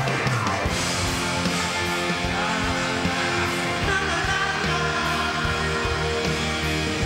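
Live rock band playing loud with singing: piano, electric guitars and drums, with a steady level throughout.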